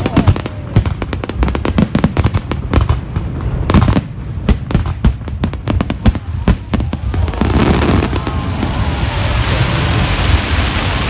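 A fireworks show's finale: a rapid, dense volley of firework bangs and crackles for about seven seconds, giving way to a steady noisy wash.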